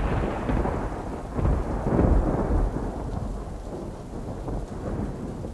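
A rumble of thunder rolling and slowly fading, with a second swell about two seconds in, over steady rain.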